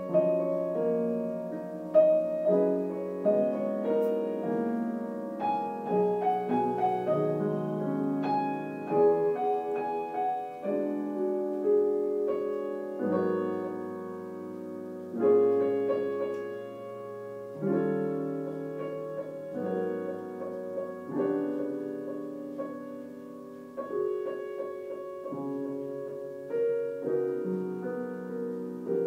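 Piano being practised: a slow piece, with notes and chords struck every second or two and left to ring out.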